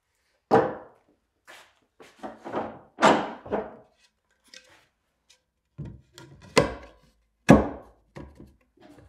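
Wooden boards and a hand plane being picked up and set down on a wooden workbench: a series of separate wood-on-wood knocks and clunks at an uneven pace, the sharpest about three quarters of the way through.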